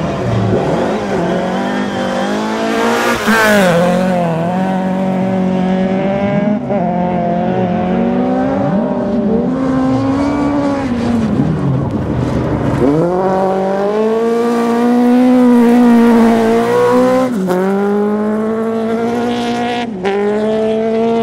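Rally car engine revving hard as the car is driven at speed, its pitch climbing and dropping back again and again through gear changes and lifts. The loudest moment comes about three seconds in.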